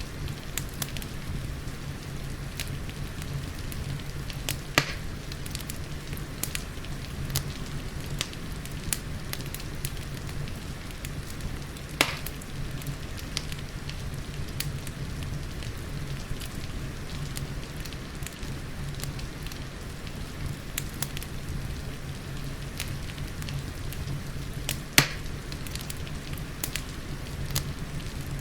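Wood fire crackling in a fireplace, with a steady patter of rain underneath and a low rumble from the flames. Small crackles come throughout, and three sharper pops stand out, about five seconds in, about twelve seconds in, and near the end.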